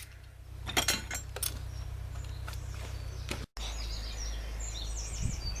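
A few sharp clicks over a steady low hum, then after a brief cut in the sound, small birds chirping with quick, repeated high notes over the hum.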